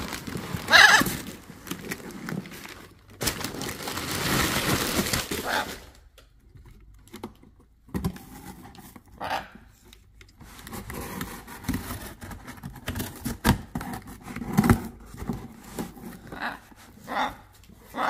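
Blue-and-gold macaw making short calls, mixed with rustling of packing paper and cardboard and knocks of toys being moved in the box; the rustling is loudest a few seconds in.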